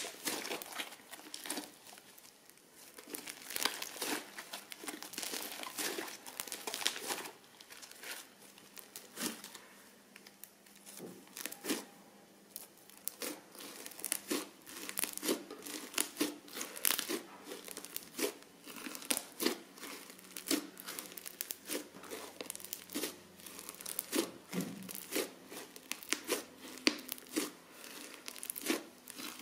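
Crunchy slime being squeezed and worked by hand: a continuous, irregular run of crackles and crinkles.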